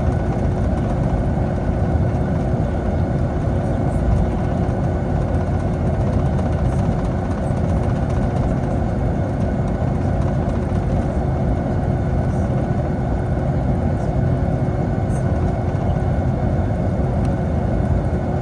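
Steady engine and airflow noise inside a Boeing 757's cabin, a deep even rush with a constant whine held at one pitch.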